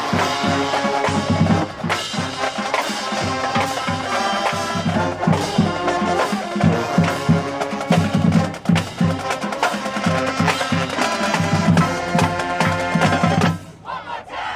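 Marching band playing: brass with a steady beat on snare and bass drums. The playing drops away briefly near the end, then comes back in.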